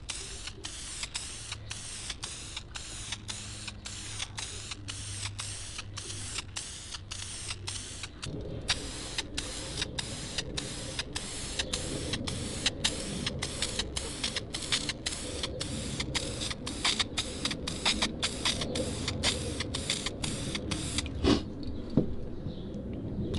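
Aerosol can of VHT Wrinkle Plus spray paint hissing in short repeated bursts, about two a second, as a coat is laid on a bumper grill. A low rumble joins in about a third of the way through.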